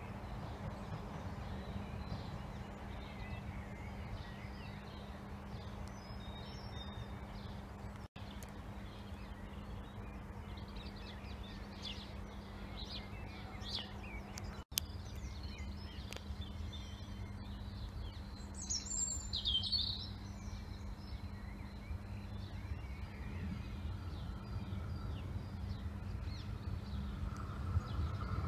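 Outdoor background noise: a steady low rumble with birds chirping now and then, and one louder bird call about two-thirds of the way in. The sound drops out briefly twice.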